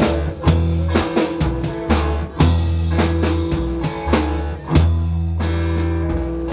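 Live rockabilly trio playing: upright double bass, electric hollow-body guitar and drum kit together, with regular drum hits over strong held bass notes.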